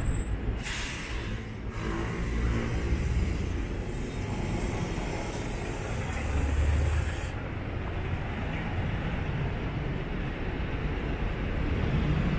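City street traffic noise: vehicles passing with a steady rumble. A hiss comes in twice, about half a second in and again around five seconds in, with a heavier rumble as a large vehicle passes around six seconds.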